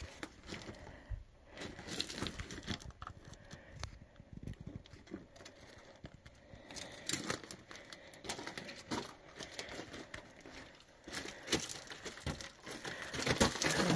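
Footsteps crunching on loose, rocky desert ground: irregular crunches, sparse at first and more frequent and louder in the second half.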